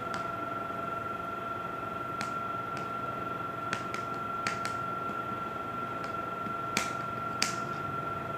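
Light clicks and taps from hands working play-dough clay on a table, scattered and irregular, the two loudest near the end. Underneath runs a steady hum with a constant high whine.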